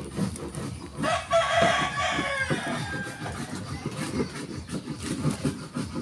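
A rooster crowing once, a single call of about two seconds that trails off downward, over a low, irregular background clatter.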